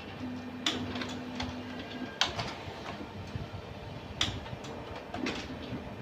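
Laser printer mechanism: a steady low motor hum for about two seconds, then a series of sharp clicks and knocks, four of them louder than the rest.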